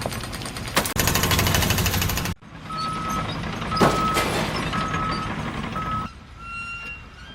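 Heavy machinery running, then, after a cut, a vehicle's reversing alarm beeping steadily at one pitch, about once a second, four times, over engine noise.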